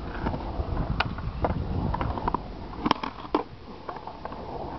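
Skateboard wheels rolling over a concrete bowl, a low rumble, with a few sharp clacks about a second in and twice near three seconds in.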